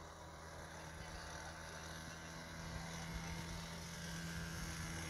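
Baby go-kart's small engine running at a steady pitch from across the track, getting gradually louder.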